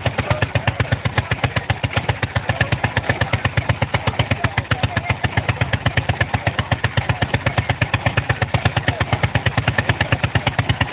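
Antique two-man chainsaw's engine running steadily with a slow, even beat of about eight firing pulses a second.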